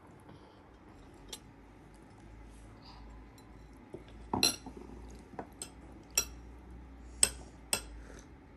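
Spoons clinking against plates and tea glasses at a meal table: a scattered series of short, sharp clinks, the loudest about four and a half seconds in.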